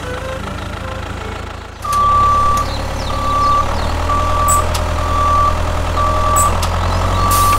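A vehicle's reversing alarm beeps about once a second, six times, over the low, steady rumble of a running engine. The engine grows louder about two seconds in, just as the beeping starts.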